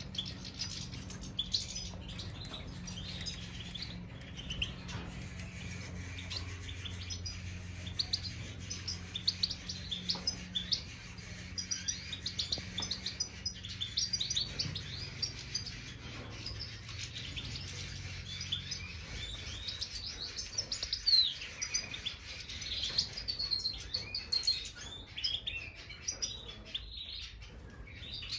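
Major goldfinches (the large Siberian form of the European goldfinch) twittering and chirping, a steady stream of quick high calls. A low steady hum runs underneath and fades out about two-thirds of the way through.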